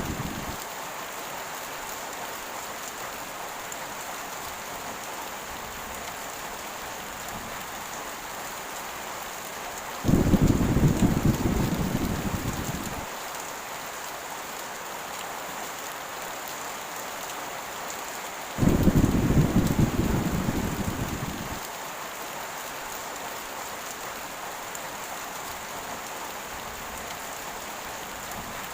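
Heavy rain falling steadily, with two low claps of thunder, about ten and nineteen seconds in, each starting suddenly and rumbling away over about three seconds.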